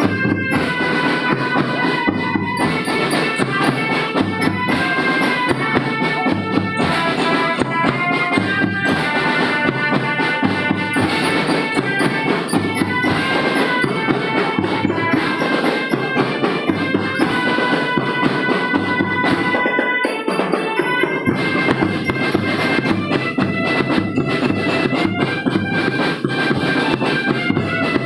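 School marching drum band playing: a steady beat of marching drums under a sustained, reedy wind-instrument melody. The drums drop out for about a second roughly twenty seconds in, then come back.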